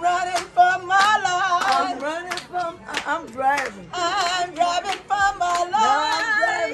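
Singing with hand clapping along to it.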